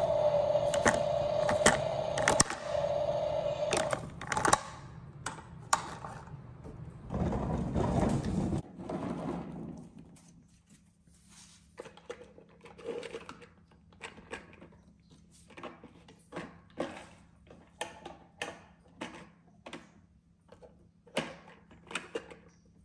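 A toy garbage truck's small electric motor runs with a steady whine for the first couple of seconds, mixed with plastic clicks. A short low rumble follows several seconds in. After that come light plastic clicks and taps as toy wheelie bins are handled and set down.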